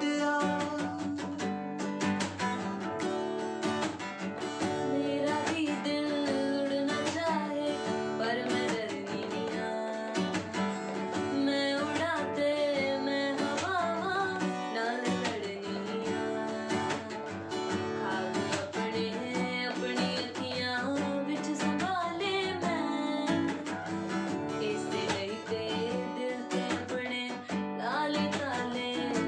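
A man and then a woman singing a slow Punjabi song over acoustic guitar.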